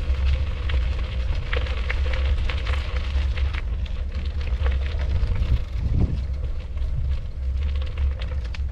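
Wind buffeting the microphone: a continuous, uneven low rumble with crackling.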